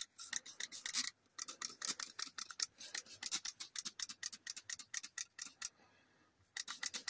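Trigger spray bottle of upholstery cleaner being squirted in rapid pumps, several short hissing squirts a second, with a brief pause near the end before more squirts.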